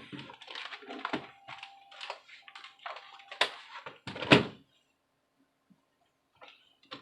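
A run of light clicks and knocks from a laptop's plastic case being handled and fitted back together, with two sharper knocks about three and a half and four seconds in, then quiet.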